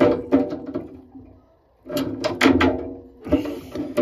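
Plastic radiator plug being tightened onto a radiator's threaded metal connection with water pump pliers: rapid creaking clicks of plastic turning on metal thread, in two spells with a short pause between, then a scraping rustle near the end.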